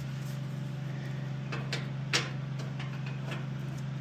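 Light clicks and taps from handling the dryer's parts during reassembly, the loudest about two seconds in, over a steady low hum.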